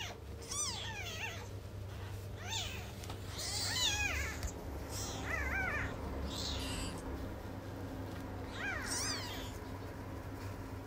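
Newborn kittens mewing: a string of short, high-pitched cries that rise and fall in pitch, about half a dozen in all, some in quick pairs.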